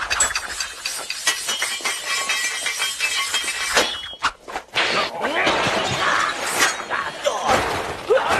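Film fight sound effects: a dense, rapid clatter of crashing and breaking as a roof is smashed through. A brief lull comes about four seconds in, then more crashes and sweeping whooshes.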